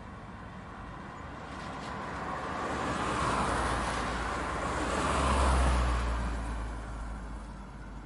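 Road traffic passing close by: tyre and engine noise swells, peaks about three seconds in, and peaks again more loudly with a deep rumble about five and a half seconds in, then fades away.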